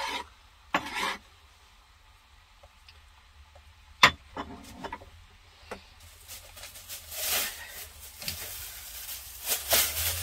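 Kitchen handling sounds: a few knocks, the sharpest about four seconds in, then the crinkling rustle of a plastic bag from about six seconds on.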